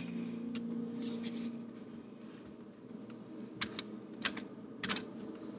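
A small dog's claws clicking on a hard surface as it shifts about: a few scattered light clicks, most of them in the second half.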